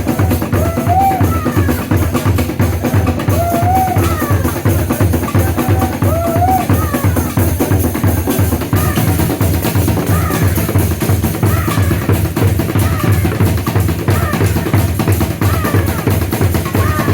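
Percussion band playing drums made from recycled materials: a fast, dense drum rhythm with a deep bass pulse. A short rising-and-falling melodic phrase repeats over it every second or so.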